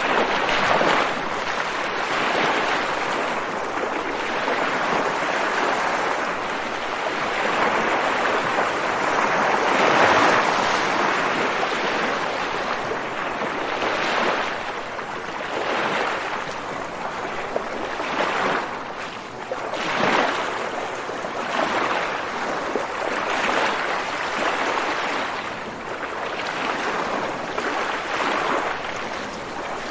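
Ocean waves breaking and washing in, a steady rush of surf that swells and eases every few seconds.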